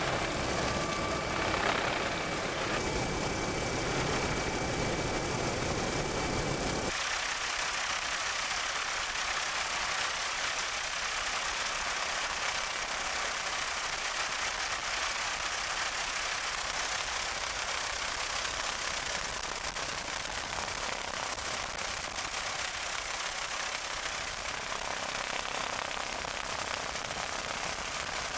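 Helicopter noise in flight: a steady rushing drone with a constant high-pitched whine. The low rumble drops away abruptly about seven seconds in, leaving mostly the hiss and whine.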